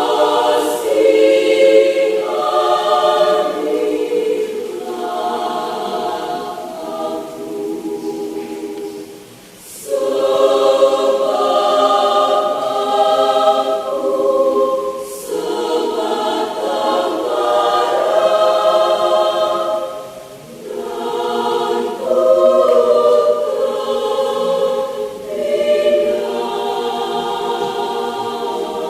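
Mixed adult choir of men's and women's voices singing a church choral piece in long phrases, breaking briefly between phrases about ten, fifteen and twenty seconds in.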